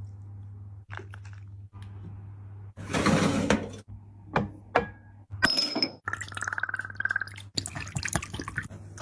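Close-miked eating sounds: sharp clicks, a loud crunchy burst about three seconds in, and wet, clinking sounds of food and dishes, over a steady low electrical hum.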